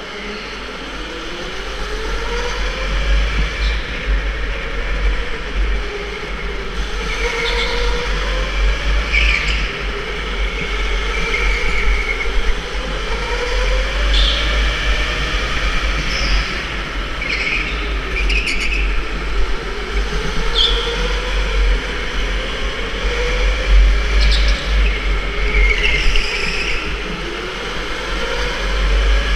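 Electric go-kart motor whining under way, its pitch rising and falling again and again as the kart accelerates down the straights and slows into corners, over a heavy low rumble. Short high squeals of tyres scrubbing through the turns come every few seconds.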